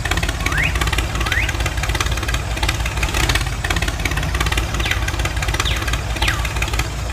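Tractor engine sound effect idling steadily, laid over toy tractors that have no engine of their own. A few short chirps, two rising near the start and three falling near the end, sound over it.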